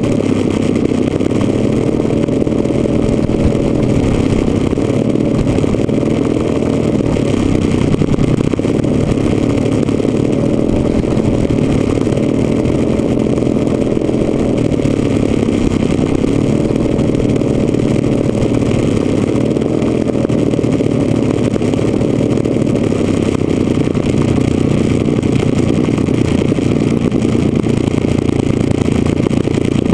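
Engines of a large radio-controlled scale B-26 Marauder running steadily while it taxis, heard close to the engine nacelle from a wing-mounted camera.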